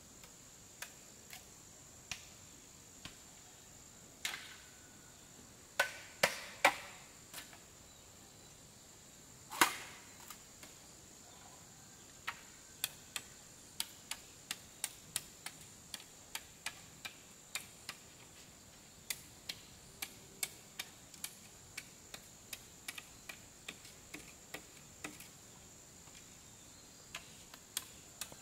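Sharp knocks and taps of tool strikes in hand building work: a few louder, ringing blows around six and ten seconds in, then light taps about twice a second from about twelve seconds on. A steady high insect drone runs underneath.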